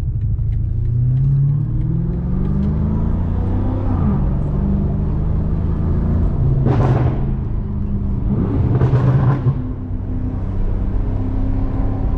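BMW M5 Competition (F90) twin-turbo 4.4-litre V8 pulling under acceleration, its pitch rising for the first few seconds and then holding fairly steady. Two short, louder bursts of noise come in the second half.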